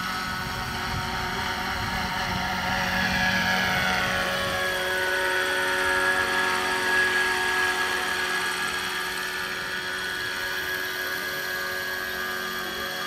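Radio-controlled scale model helicopter, a Bo 105, flying past with a steady high whine from its rotor drive. The pitch drops as it passes, about four seconds in, and it is loudest a few seconds later.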